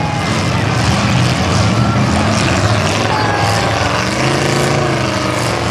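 Demolition derby cars' engines running and revving in a steady, loud drone, with one engine's revs rising and falling about four seconds in.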